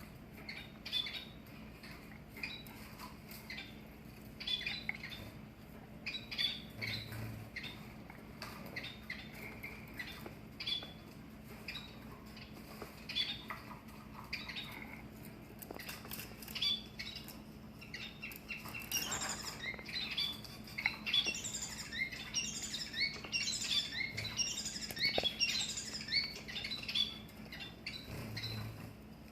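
Long-tailed finches calling in short, high chirps. In the second half this gives way to a dense, rapid run of rising notes, the male's loud crow-like courtship song. A faint steady hum runs underneath.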